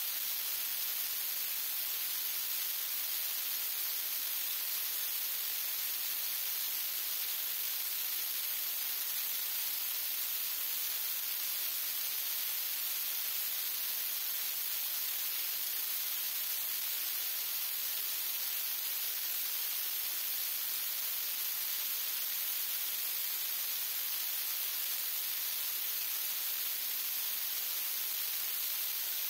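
Steady static hiss with no other sound in it: the recording's own noise, with no clicks or knocks from the jack.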